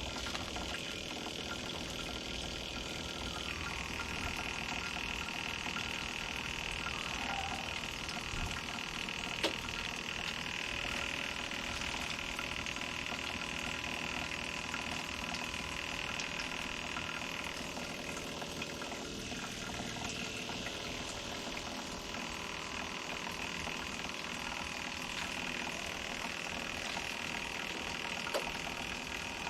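Honda Helix scooter's single-cylinder engine idling steadily on its replacement fuel pump while the tank runs down to the red reserve bar.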